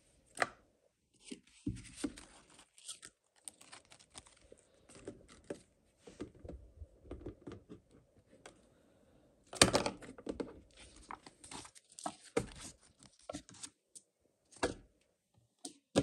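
Toy packaging and plastic toy parts handled close to the microphone: irregular tearing and crinkling rustles mixed with short clicks and taps, the loudest about ten seconds in.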